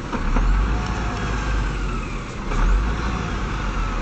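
Scania truck's diesel engine labouring to drive out of snow it is stuck in, with a deep rumble. The revs rise and fall twice.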